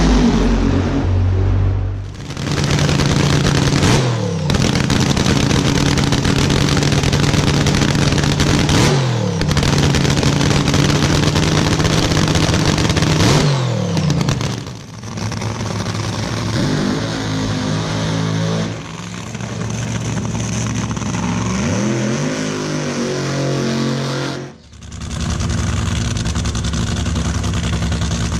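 Nitromethane-fuelled drag racing engines cackling, loud and steady, with the pitch dropping and rising again several times as the throttle is blipped. The sound cuts abruptly from one engine recording to another several times.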